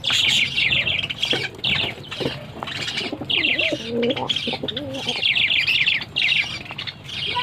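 A chorus of small cage birds chirping rapidly and continuously, with a dove cooing in the middle.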